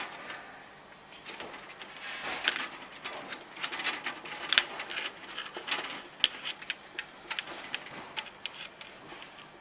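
A 5mm Allen key working the connecting bolt of a metal iPad kiosk stand loose: irregular metallic clicks and scrapes, with a few sharper clicks about halfway through.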